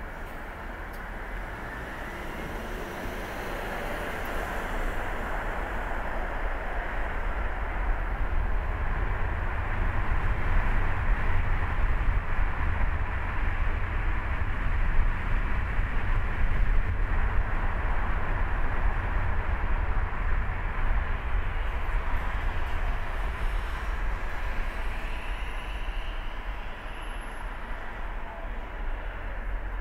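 Car driving on a city street: a steady low rumble of road and tyre noise, growing louder over the first ten seconds or so as the car pulls away from a stop and picks up speed.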